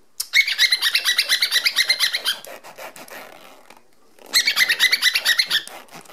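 Cockatiel chattering in two rapid bursts of quick, repeated chirps, one early and one past the middle, with a fainter stretch between.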